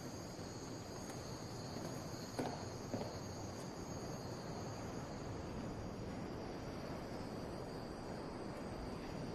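Crickets chirping steadily as night ambience, with two faint knocks about two and a half and three seconds in.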